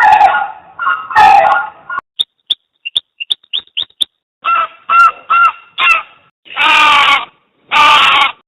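A string of different bird calls cut one after another. A few lower calls come first, then a quick run of short high chirps, then repeated calls and two longer calls near the end.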